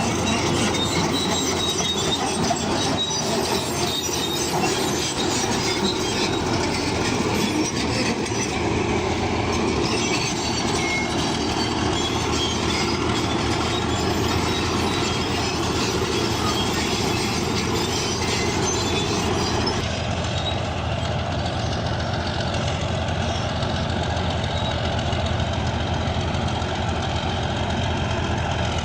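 Crawler bulldozer working, its diesel engine running under the squeal and clank of its steel tracks. The sound changes character about twenty seconds in.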